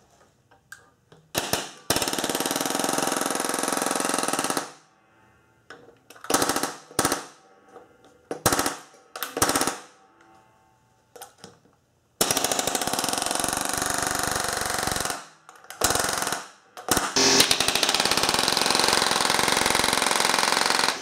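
Palm nailer hammering 16-penny (3.5-inch) nails into a doubled 2x8 header. Three long runs of rapid blows, each a few seconds, with several short bursts between them as each nail is started.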